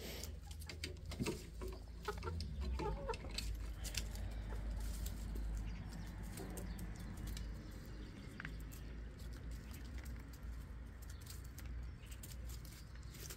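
Chickens clucking now and then, with light scratching and pattering as the hens move about; a low rumble runs underneath.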